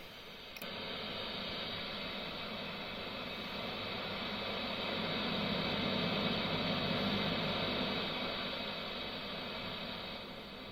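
Marshall JVM 410C tube guitar amp at extreme gain settings, idling with no guitar played: steady hiss with a low hum, the background noise of its preamp tubes. A click about half a second in, after which the hiss swells, peaks midway and eases off near the end.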